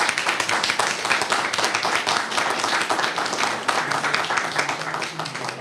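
Audience applauding a male a cappella group at the end of its song, a dense steady clapping that eases slightly near the end.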